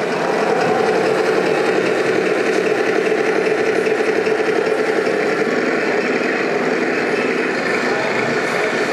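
Traxxas TRX-4 RC crawler's electric motor and gear drive running steadily as it drives, a constant whine with a fine rattle.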